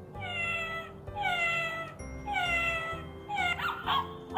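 Electronic sound book's cat button playing a recorded cat meowing four times, about a second apart, each meow falling in pitch, over a looping music backing tune.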